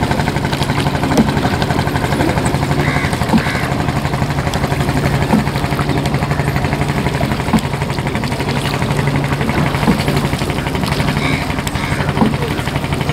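Boat engine running steadily with a rapid, even chugging, and a slightly louder knock about every two seconds.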